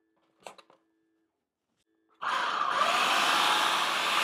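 A brief click, then about two seconds in an electric food processor starts up and runs steadily, its blade chopping fresh herbs, garlic and shallot.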